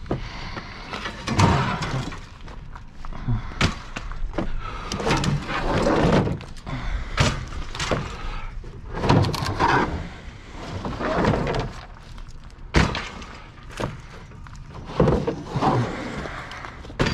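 Scrap metal being thrown onto a scrapyard pile: irregular crashes and clanks about every second, with one sharp bang about three-quarters of the way through.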